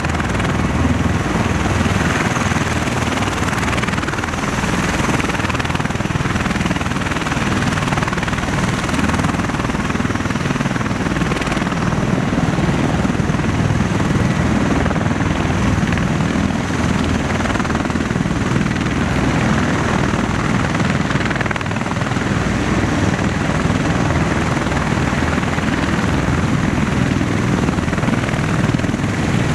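MV-22B Osprey tiltrotors taxiing in helicopter mode, their proprotors and Rolls-Royce AE1107C turboshaft engines running with a steady, heavy rotor noise, blended with other rotorcraft running on the flight line.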